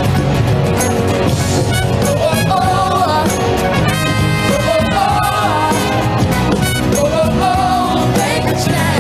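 Live upbeat band music with singing, brass and a steady beat.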